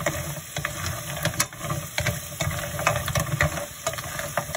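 Clams in their shells being stir-fried with a wooden spatula in a nonstick frying pan: the shells clatter against each other and the pan in quick irregular clicks over a low steady rumble.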